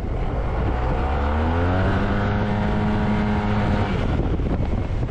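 Yamaha T-Max 530 scooter's parallel-twin engine under acceleration through its Malossi Over Range variator: the revs climb for about a second and a half, hold steady, then fade near the end. Wind rushes over the microphone throughout.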